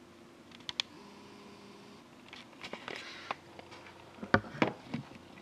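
Quiet handling noise of a plastic-wrapped trading card box being picked up: scattered light clicks and crinkles, with one thump about four seconds in.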